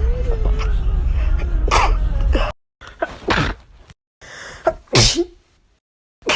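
A woman sneezing three times, each a sharp burst, in separate clips divided by brief silent gaps; the first sneeze comes over a steady low rumble.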